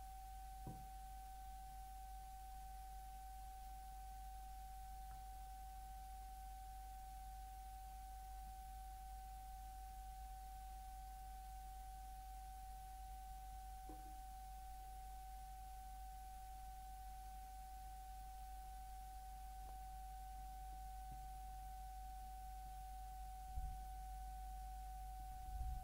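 A faint, steady pure tone held at one pitch throughout, over a low hum, with a few soft knocks, the loudest two near the end.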